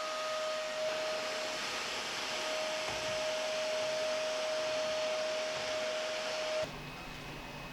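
Steady rushing noise of a blower-type machine with a steady whine, which cuts off abruptly near the end to quieter room sound.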